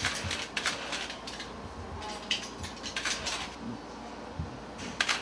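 Camera shutter clicking in a series of irregular shots, several close pairs and runs of sharp clicks.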